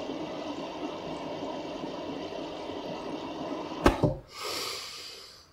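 Air blown through a thin tube into the water of an aquaponic tub: a steady bubbling that stops about four seconds in with two sharp clicks as the tube comes out of the mouth, followed by a breathy intake of air that fades out.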